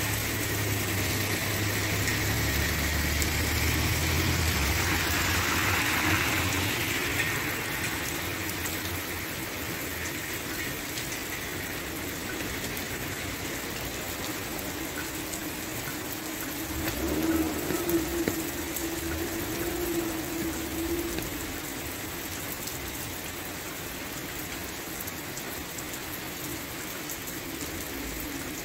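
Heavy rain falling on paved streets, a steady hiss. A vehicle engine rumbles in the first several seconds and fades away, and a brief low hum comes up about seventeen seconds in.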